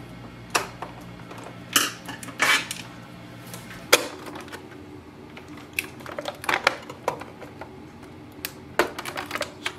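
Scattered plastic clicks and clacks from an Epson EcoTank ET-3830 printer's cable connectors and casing parts being unplugged and handled during disassembly.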